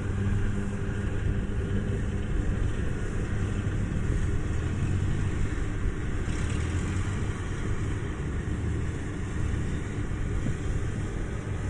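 Kubota rice combine harvester's diesel engine running steadily, a low continuous drone.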